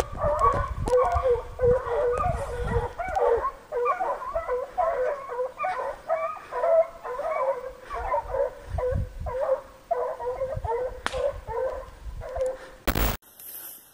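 A pack of American foxhounds baying in chorus on the trail of a deer, their calls overlapping without pause, with low rumbles on the microphone. The sound cuts off abruptly near the end.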